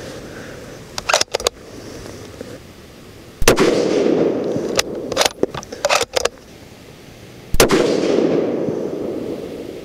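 Two rifle shots about four seconds apart from a Sig Cross bolt-action rifle in .308 Winchester with a three-port muzzle brake, each loud report trailing off over a few seconds. Short metallic clicks come before and between the shots as the bolt is worked to eject the spent case and chamber the next round.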